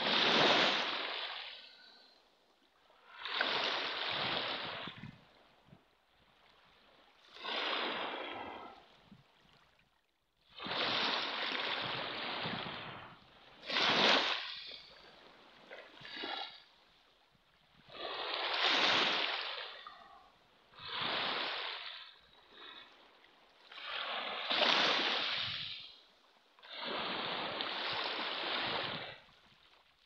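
Small waves breaking and washing up a pebble beach: a rush of surf every two to four seconds, with quiet between.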